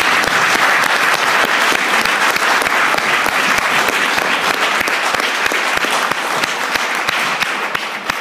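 Audience applauding: dense, steady clapping from a crowd, starting to ease off near the end.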